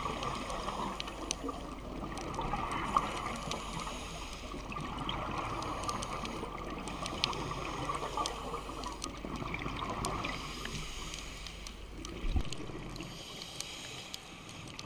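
Muffled underwater ambience picked up through a camera's waterproof housing: a steady watery rush with a few small clicks scattered through it.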